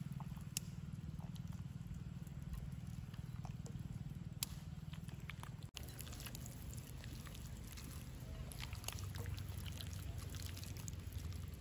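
Hands squishing and turning marinated chicken drumsticks in a flour and cornflour coating in a bowl: soft wet squelches and sticky clicks, busier in the second half, over a steady low rumble.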